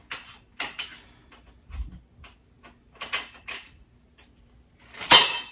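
Small metal parts and screws of a folding garment rack clicking and knocking against the metal frame as they are handled and fitted, with a louder metallic clank about five seconds in that rings briefly.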